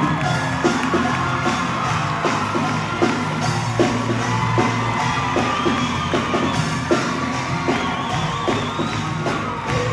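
Show choir singing over loud backing music with a steady beat, with whoops from the audience.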